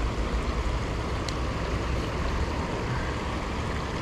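Steady rushing of river water flowing around the wading angler, with a deep low rumble and a faint click about a second in.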